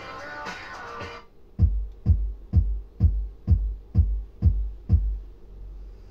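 Music playing through a vintage Pioneer car stereo stops about a second in, and a new track starts with a bare kick-drum beat, about two beats a second, eight beats in all, fading near the end. The change comes as the track is skipped on the tuner's buttons.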